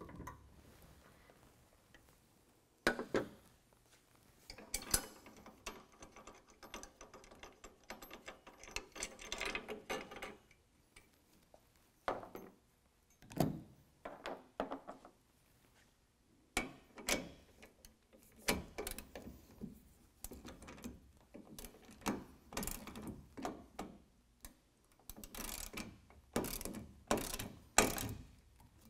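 Hand ratchet clicking in short runs as the sport-rack bracket bolts are tightened, with separate sharp clinks and knocks of tools on the steel rack and brackets.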